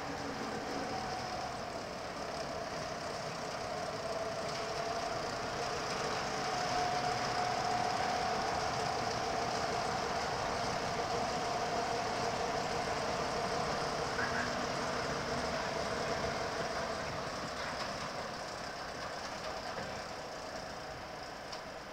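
Small diesel shunting locomotive running slowly past, hauling passenger coaches. Engine and rolling wheels with a steady whining tone grow louder to a peak about a third of the way in, then fade as the coaches roll by.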